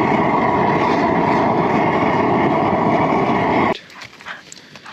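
Vehicle engine running steadily, then cut off abruptly about three-quarters of the way through, leaving only faint background clicks.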